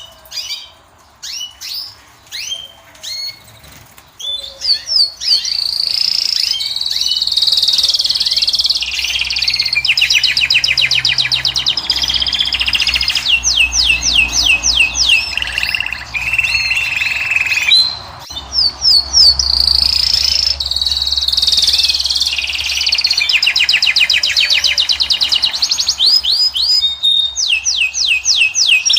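European goldfinch (Moroccan goldfinch) singing: a fast twittering song of rapid repeated trills and slurred whistled notes. A few scattered chirps open the song, it runs almost without a break from about four seconds in, and there is a short pause past the middle.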